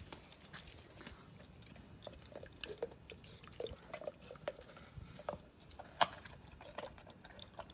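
A large dog eating food off a concrete floor: irregular chewing, crunching and mouth clicks, with one sharper click about six seconds in.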